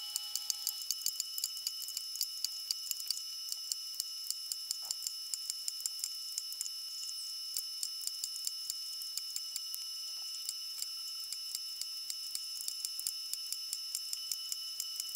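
Pneumatic rivet squeezer setting the skin-to-spar rivets of an aluminium aircraft stabilizer: a quick run of short, sharp metallic clicks, two or three a second at first and more scattered later, over a faint steady high whine.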